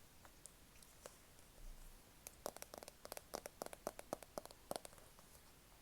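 A quick, dense run of small sharp clicks and taps right at the microphone, ASMR-style, starting about two seconds in and lasting a couple of seconds, with a few scattered clicks before it.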